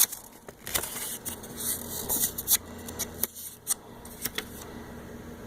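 Handling of small packaging and pieces: scattered light clicks and short bursts of rustling.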